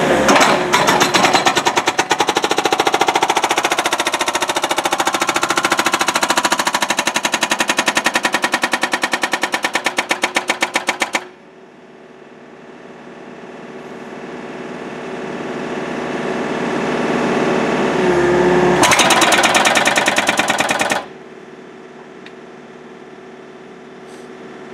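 Rockblaster hydraulic hammer on a Case excavator's boom pounding concrete in rapid, evenly spaced blows for about ten seconds. It stops, then hammers again for about two seconds. In the gaps the excavator's engine runs steadily.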